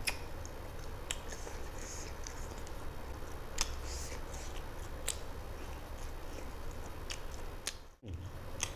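Close-miked chewing and lip-smacking as a chicken drumstick is bitten and eaten by hand, with sharp wet clicks every second or so. The sound drops out briefly near the end.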